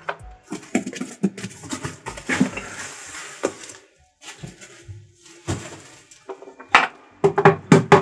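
Irregular knocks, clunks and rustling from handling foam packing and setting metal amplifier modules down on a workbench, with a quick cluster of knocks near the end.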